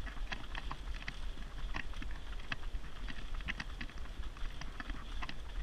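Running footsteps of several runners on tarmac, a quick irregular patter of shoe strikes, over a steady low rumble from the buggy rolling on the road and wind on the microphone.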